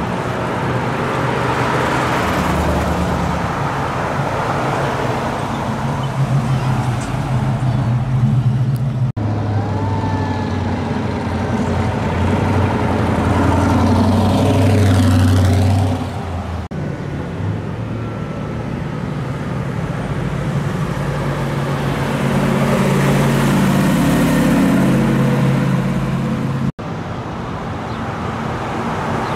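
Cars and pickup trucks driving past one after another, their engines and exhausts giving a low, steady note that swells as each vehicle goes by. The sound changes abruptly three times as one drive-by cuts to the next.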